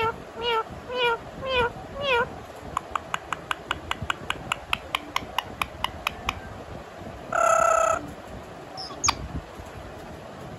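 Indian ringneck parrot mimicking a cat's meow, about five meows in quick succession. It follows with a rapid run of short clicks, then gives one loud harsh squawk about seven seconds in and a short chirp soon after.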